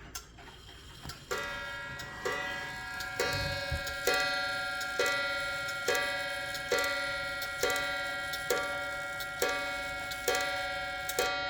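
Waterbury clock striking twelve on its coiled wire gong, the hammer hitting about once a second from a second in, each stroke ringing on into the next. The gong rings freely because its coil no longer rubs against the clock's back wall.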